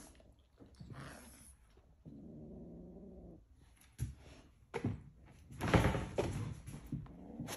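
Bernese mountain dog and kitten play-fighting: a low growl lasting about a second and a half near the middle, then several sudden bumps and scuffles, the loudest about three-quarters of the way through.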